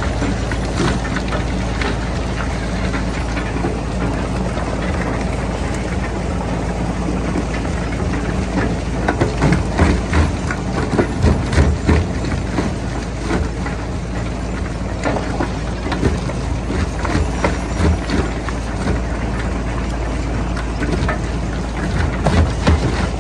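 Stone jaw crusher running with a steady low hum, rocks cracking and knocking in its jaws at irregular moments, most thickly around the middle and again near the end.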